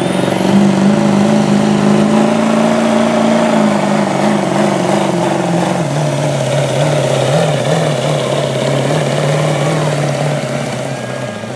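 Diesel pickup engine, a Ford Super Duty, held at high revs under full load while pulling a weight-transfer sled. The engine note climbs about half a second in, holds, then sags a little and wavers as the sled drags harder, with a high whine over the top.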